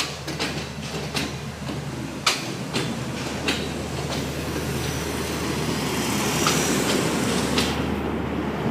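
Pakistan Railways Green Line express passenger coaches rolling past at speed: a steady low rumble with a hum, and sharp wheel clicks over the rail joints at uneven intervals, growing a little louder toward the end.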